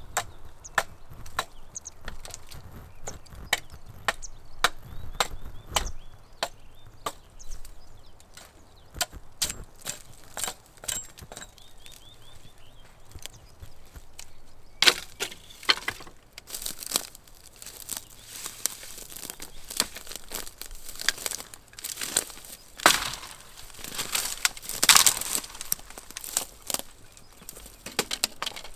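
Firewood being split by hand: a run of sharp wooden knocks, about two a second, then louder cracking and splintering from about halfway through.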